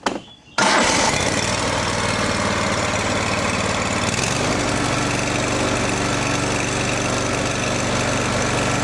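V-twin riding mower engine starting abruptly about half a second in and then running steadily, its note settling about four seconds in.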